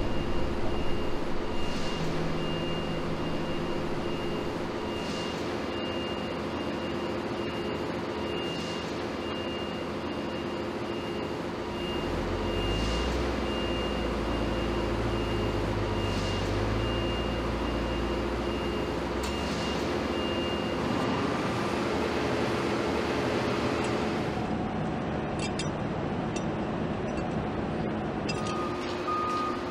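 Shipyard machinery hum with a high-pitched warning beep pulsing over and over, which stops a little past the middle. A deeper rumble swells in the middle, and near the end the sound changes, with a different lower steady tone.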